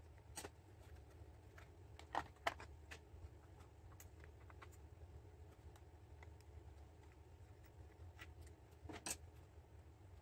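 Near silence: a low steady hum with scattered faint clicks and knocks from hands handling a stopped chainsaw, the sharpest about two seconds in and near the end.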